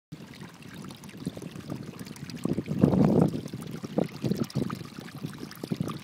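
Water gurgling and trickling through narrow crevices in volcanic rock, in irregular small splashes that swell about halfway through.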